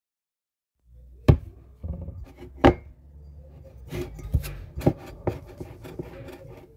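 A hand mixing crinkle-cut potato fries into wet batter in a plastic bowl, with rustling handling noise and a string of sharp knocks, the loudest about a second in and again nearly three seconds in.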